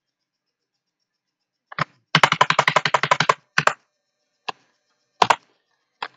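Typing on a computer keyboard. About two seconds in comes a fast run of keystrokes lasting a little over a second, then a few single clicks spaced about a second apart.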